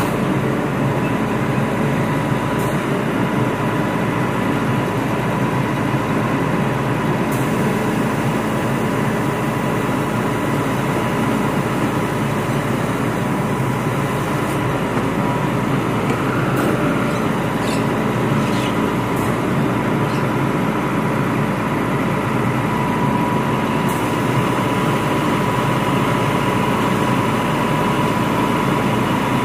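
Volvo FM 370 refuse truck's diesel engine running steadily while it stands at a bin centre, with a steady high whine over the engine sound.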